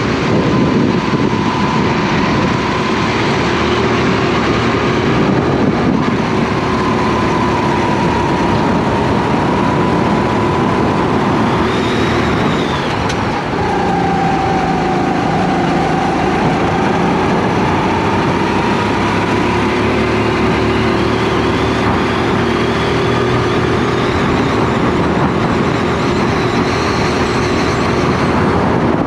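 Rental kart engine heard onboard during a race lap, running hard. Its pitch sags through a slow corner about halfway through and climbs again as the kart accelerates out.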